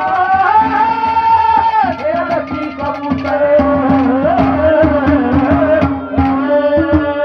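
Haryanvi ragni music: a hand drum playing fast, even strokes under a held, wavering melody line.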